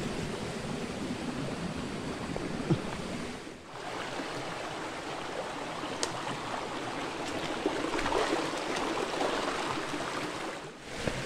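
Shallow rocky stream rushing over stones: a steady wash of running water that dips briefly about a third of the way in and again near the end.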